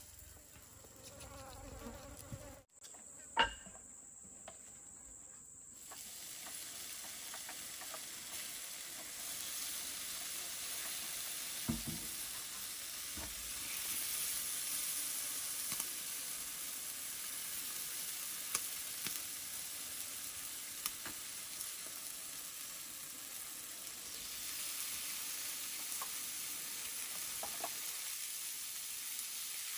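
Chicken grilling over a fire: a steady sizzle that grows louder about six seconds in, with a few small pops and crackles.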